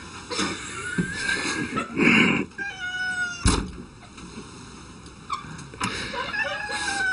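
A cat making several long, drawn-out meows whose pitch slides, with a sharp knock about halfway through.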